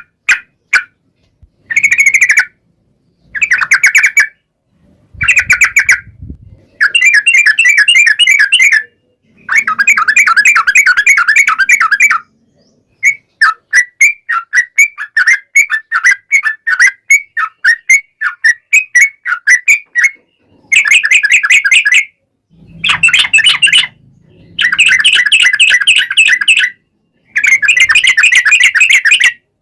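Yellow-vented bulbul (trucukan) singing long, fast chattering phrases: a rapid string of bright notes, each burst lasting one to three seconds with short pauses between, repeated over and over.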